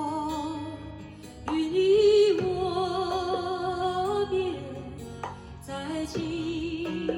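A song with a woman singing long held notes with vibrato over guitar accompaniment, played back through a laptop's built-in speakers.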